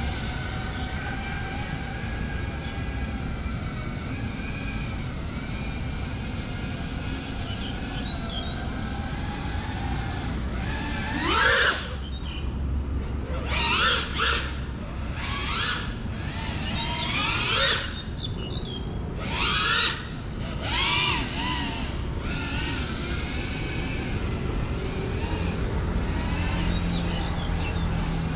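GEPRC Cinelog35 ducted FPV drone's propellers whining in flight. The whine is steady at first. From about eleven to twenty-one seconds in, the motors speed up in about half a dozen sharp rising surges, then settle back to a steady whine near the end.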